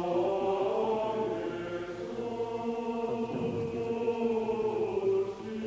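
A choir singing a slow liturgical chant in long held notes that change pitch every second or so.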